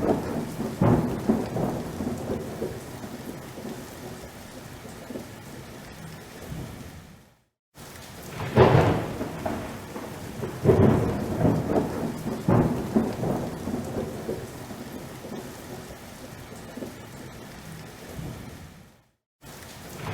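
Thunderstorm: steady rain with several rumbling thunderclaps, the loudest about nine and eleven seconds in. The sound cuts out to silence for a moment twice.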